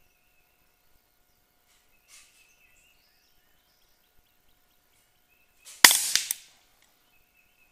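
A single shot from an Air Arms LCS SK-19 .22 pre-charged pneumatic air rifle: one sharp crack about six seconds in, dying away within half a second, with a second sharp crack as it fades.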